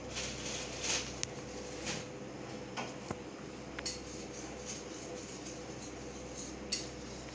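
A steady low hum with a few faint, irregular clicks and ticks scattered through it.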